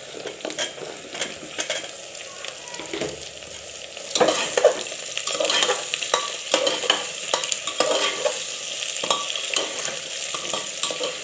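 Potato, cauliflower and soybean pieces sizzling as they fry in hot oil in a pressure cooker, with a steel ladle scraping and clinking against the pot as they are stirred. The sizzle gets louder about four seconds in.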